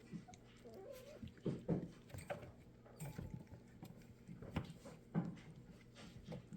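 Five-week-old Labradoodle puppies playing: scattered light knocks and scuffles of paws and toys, with a brief puppy whine a little under a second in.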